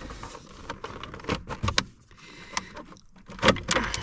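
Scattered clicks and knocks of parts being handled and pulled off while an Audi's ignition lock assembly is taken apart, with a few sharp clicks close together.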